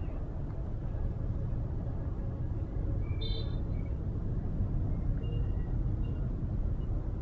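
Steady low outdoor rumble, with a brief high chirp about three seconds in.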